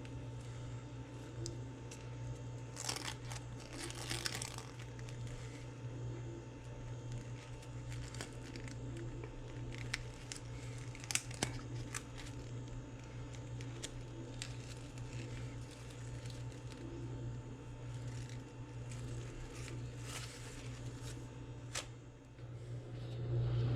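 Crinkling and rustling, loudest about three to four and a half seconds in, with scattered sharp clicks and a steady low hum underneath.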